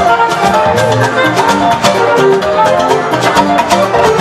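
Loud party music with a quick, steady drum beat under a stepped melodic line.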